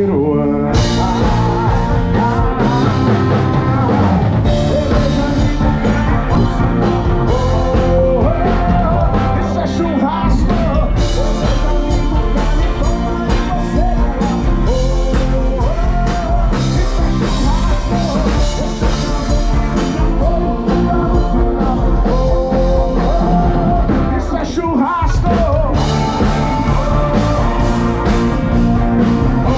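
A live band playing a song: a male lead vocal sung over acoustic guitar, keyboard and drums. The beat drops out for a moment near the end.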